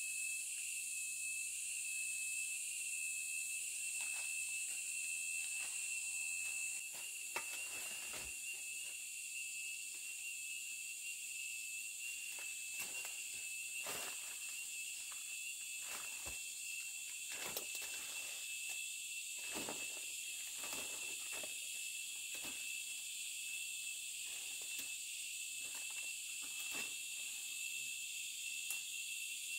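Steady high-pitched insect chorus with a thin, even whine, and light knocks and taps scattered through it at irregular intervals.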